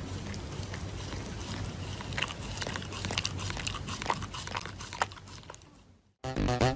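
Shiba Inu chewing and mouthing a paper tissue: scattered crinkles and clicks over a steady background hiss. The sound fades out near the end, and electronic music starts just before the end.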